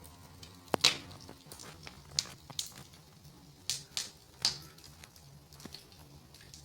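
Wood fire burning in a fireplace, crackling with a handful of irregular sharp pops, the loudest about a second in.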